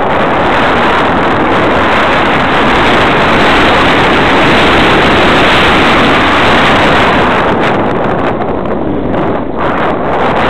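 Loud, steady rush of airflow and the motor glider's motor and propeller, picked up by the camera's microphone on the wing in flight. It eases briefly about nine seconds in.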